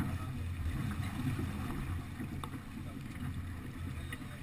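Wind buffeting the action-camera microphone in a steady low rumble, over the wash of water along the hull of a yacht under sail, with a few faint clicks.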